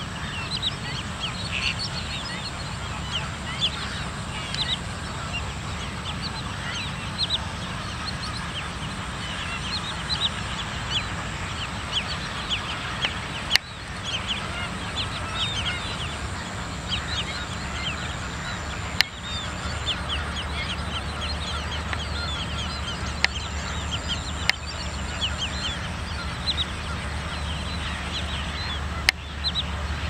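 A mixed flock of flamingos and black-winged stilts calling all at once: a constant chatter of many short, high calls overlapping. Four sharp clicks break through, about halfway in, then at roughly five-second spacing to near the end.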